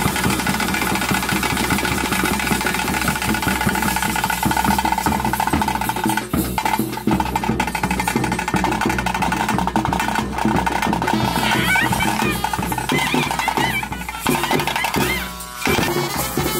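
Bhuta kola ritual music: fast, dense drumming with a held note from a wind instrument sounding over it.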